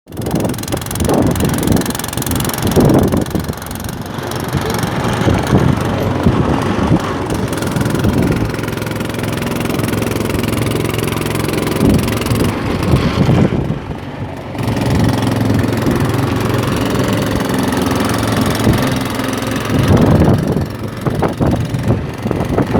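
A fishing boat's engine running steadily, with a brief drop in level about fourteen seconds in.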